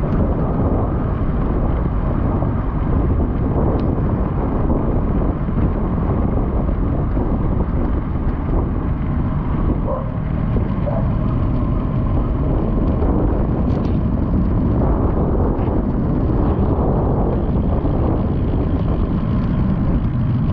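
Steady wind rushing over the microphone while riding, over continuous vehicle road noise.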